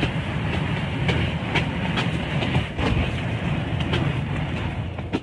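Steady low rumble of wind buffeting a handheld phone's microphone, with a few light clicks; it cuts off suddenly at the end.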